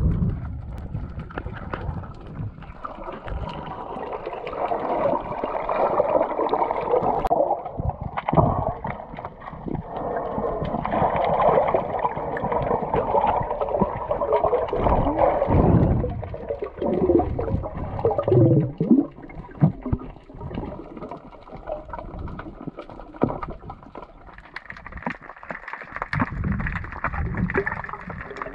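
Muffled underwater noise through a camera's waterproof housing: water moving and gurgling, with bubbling, rising and falling as the diver swims down along the reef.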